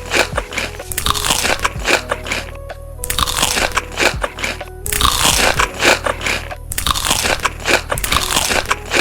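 Crisp food being bitten and chewed close to the microphone: loud crunching in four bursts of a second or two each, over background music.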